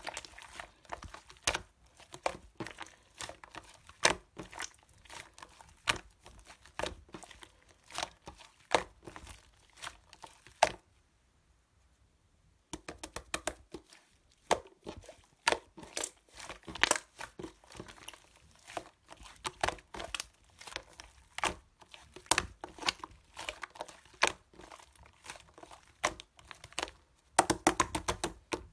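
Yellow slime being pressed, poked and stretched by hand, giving a dense run of sharp clicks and pops, with a pause of about two seconds partway through.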